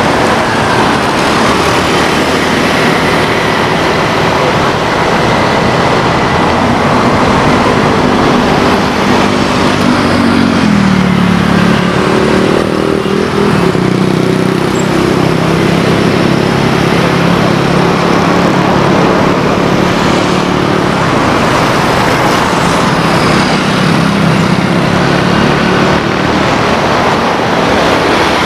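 Cessna 172 single-engine propeller plane droning past during a touch-and-go, its engine pitch dropping about eleven seconds in as it goes by, over a steady rushing noise.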